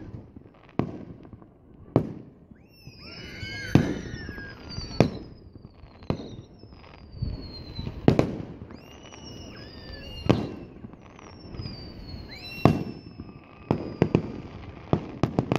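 Aerial fireworks shells bursting with sharp bangs every second or two, with whistling tones that slide down in pitch between the bangs and a quick run of pops near the end.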